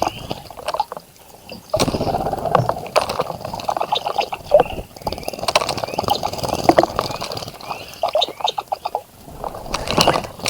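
Small birds splashing and fluttering in a shallow bird bath, with water spattering in bouts and lulling briefly about a second in and again near the end. Short bird chirps are mixed in.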